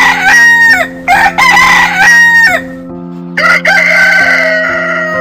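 A rooster crowing loudly, three crows in a row. One is ending as the sound begins, the next comes about a second in and the last about three and a half seconds in, trailing off near the end. Steady held music chords run underneath.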